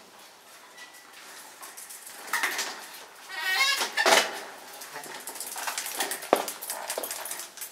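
Bicycle being pulled from a cluttered rack: metal clanking and rattling, with the loudest clatter about four seconds in. Just before it comes a short wavering squeal.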